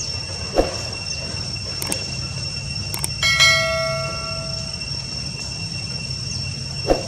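A bell-like chime struck once about three seconds in, its ring dying away over a second or two. It sounds over a steady hum with two steady high tones, with a short knock near the start and another near the end.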